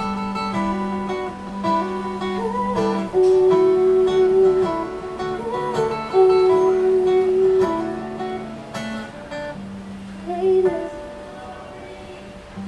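Music: an instrumental passage of a pop ballad led by acoustic guitar, with sustained notes and a few gliding melody notes, fading somewhat near the end.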